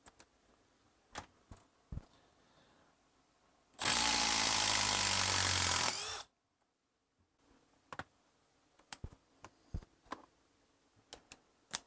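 Milwaukee M12 Fuel brushless impact driver hammering a long screw out of a log round, in a steady run of about two seconds that starts about four seconds in. Light clicks and knocks of handling come before and after it.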